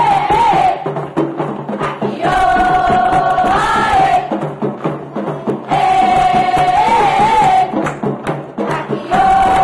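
Children's choir chanting short sung phrases of held notes that lift at the end, alternating every couple of seconds with a fast rhythmic percussion pattern in a Caribbean-style groove.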